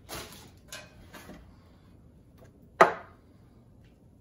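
Handling noises while preparing food at a kitchen counter: a few brief rustles in the first second and a half, then one sharp knock of a hard object near three seconds in.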